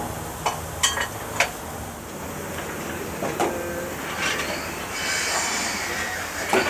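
Sharp metallic clinks and knocks from the running gear of a standing three-cylinder steam locomotive, four of them in the first second and a half. Steam then hisses from the locomotive, with another clank near the end.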